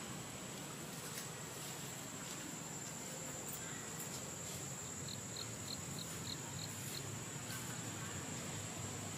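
Insects giving a steady high-pitched drone, with a quick run of seven short, high pips about halfway through and a few faint clicks.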